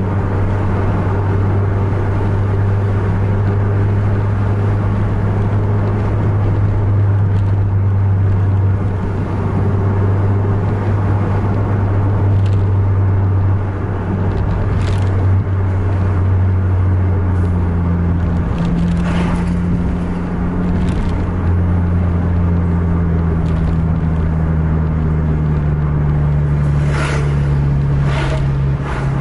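Car engine and road noise at highway speed, heard inside the cabin: a steady engine drone whose pitch shifts upward about two-thirds of the way through. Near the end a few brief whooshes come from a truck going past close by.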